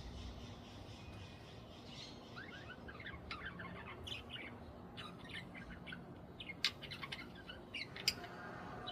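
Budgerigars chirping in short, scattered calls, with two sharp clicks in the second half.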